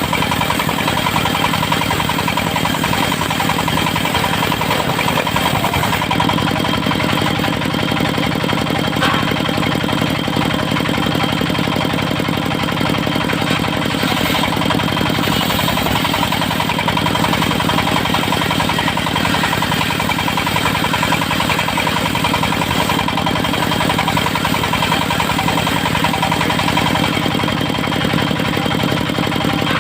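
Engine of a mobile circular-saw sawmill rig running steadily at constant speed, with a thin high steady tone above it.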